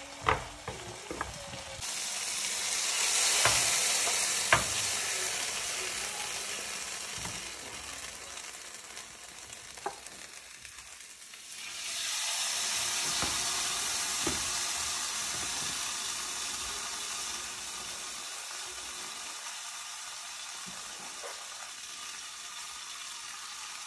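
Strips of steak, chicken and vegetables sizzling in olive oil in a grill pan, a steady frying hiss that swells for a few seconds about two seconds in and again about halfway through. A few sharp knocks of a wooden spoon against the pan.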